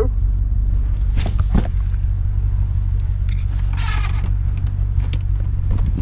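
Audi 4.2 V8 idling with a steady low rumble through its exhaust, which is fitted with a cut-off valve ahead of the rear silencers. Two light knocks come about a second in.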